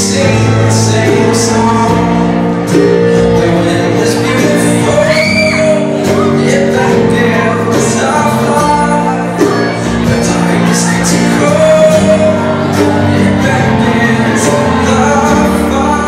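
A live band playing a folk-pop song: a singing voice over keyboard and acoustic guitars.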